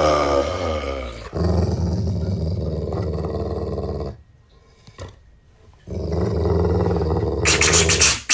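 A dog growling in long, low, rumbling growls, with a falling snarl at the start. The growling breaks off for about two seconds in the middle, starts again, and turns into sharper, louder snarling bursts near the end.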